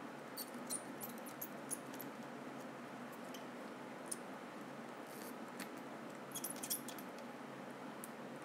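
Faint, scattered clicks and taps of small hand tools working on a Nintendo 3DS's charging port area, over a steady low hiss, with a cluster of clicks near the start and another about two-thirds of the way through.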